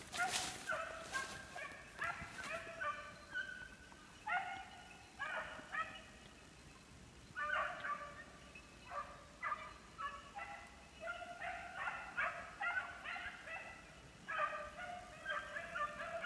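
Rabbit-hunting hounds baying out of sight in the brush, in repeated runs of high yelping cries with short pauses between them: the pack giving tongue as it works a rabbit's scent.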